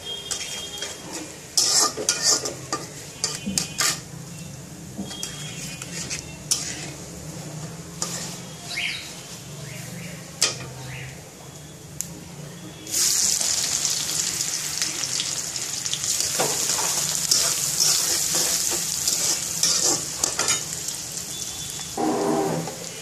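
Cumin seeds spluttering in hot oil in a wok, with a steel spatula scraping and clinking against the pan. About thirteen seconds in, a loud sizzle starts as sliced onion goes into the hot oil, and carries on while it is stirred.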